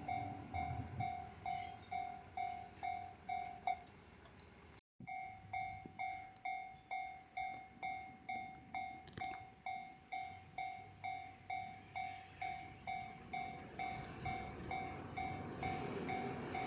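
Japanese railway level-crossing warning bell ringing steadily, about two strikes a second. It breaks off briefly about five seconds in and then carries on, over a faint low train rumble near the start.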